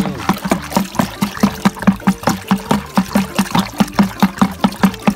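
An iron bar stirring a slurry of chicken manure, wood ash, coffee grounds and water in a plastic bucket. The liquid sloshes in quick, even strokes, about four to five a second.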